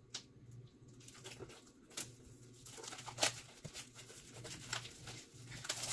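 Packaging being picked at and peeled off a small hardbound journal by hand: faint scattered crackles and clicks, with sharper snaps about two and three seconds in.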